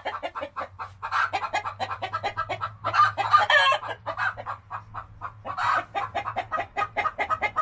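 Hen's egg song: rapid, repeated clucking punctuated by louder drawn-out 'bakawk' calls, about three seconds in and again near six seconds. It is the call a hen gives after laying an egg.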